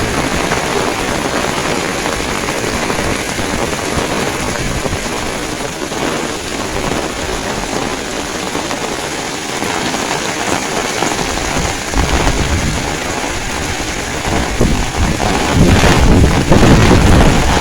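Heavy rain pouring steadily, with gusts of strong wind buffeting the microphone as a low rumble about two-thirds of the way through and again, louder, near the end.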